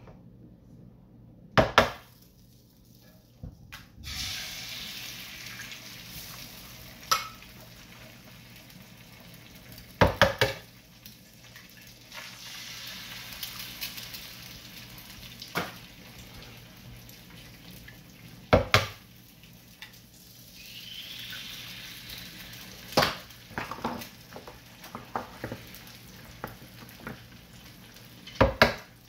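Eggs cracked one after another onto a hot electric griddle: a sharp knock of shell every few seconds, about five in all, and a steady sizzle that starts a few seconds in as the eggs fry in the grease.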